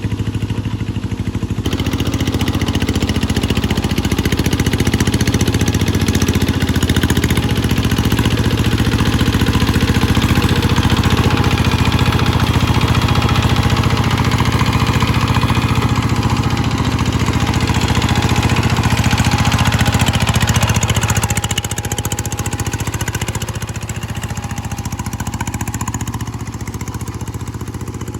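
G1000 engine running steadily in a test run. It gets louder about two seconds in and eases back down about three-quarters of the way through.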